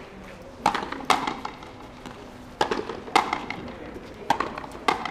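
Frontenis rally: the rubber ball cracking off strung rackets and smacking against the fronton wall, six sharp hits that come in pairs about half a second apart.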